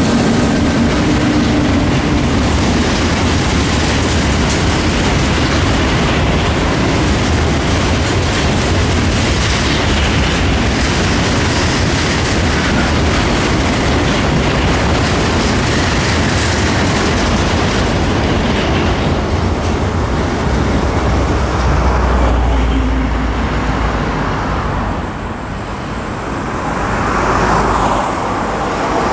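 A freight train of loaded car-carrier wagons behind an SNCF BB 22200 electric locomotive running past at speed: a steady rumble with wheel clatter on the rails. The sound drops about 25 s in as the last wagon clears, then rises again near the end as another train approaches.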